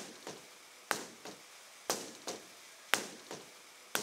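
Hammer striking hard mortar about once a second, each sharp strike followed by a lighter tap and a short ring, chipping away at the lime-mortar backing of a mosaic section.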